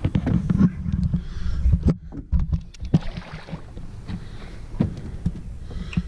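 Wind rumbling on the microphone with scattered knocks and clunks on a fishing boat, and water swirling and splashing as a hooked catfish is worked beside the landing net.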